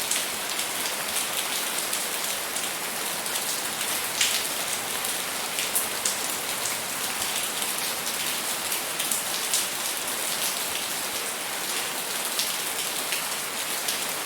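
Steady rainfall: a dense hiss of rain with many distinct drops ticking on a hard surface.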